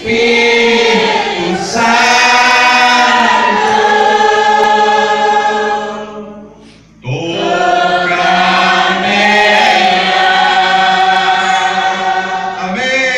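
Gospel singing: voices holding long, gliding notes in two phrases, with a brief break about six and a half seconds in.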